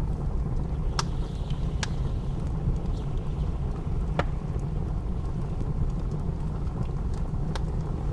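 Wood fire crackling in a fireplace, with a few sharp pops scattered through it, over a steady low rumble of blizzard wind.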